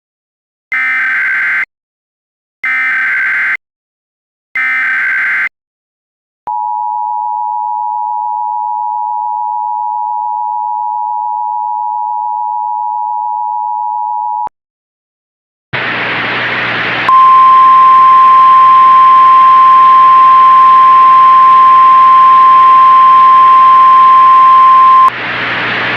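Mock Emergency Alert System tones. First come three short screeching bursts of SAME header data. Next the steady two-tone EAS attention signal sounds for about eight seconds. After a brief gap, a loud static hiss starts, joined by a single steady alert tone, and both cut off shortly before the end.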